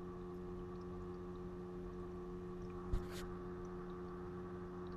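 Steady hum of a small 9-volt submersible water pump circulating coolant through a homemade laptop water-cooling loop, running noisier than normal because it was damaged earlier by being run against a blocked flow. A single short click about three seconds in.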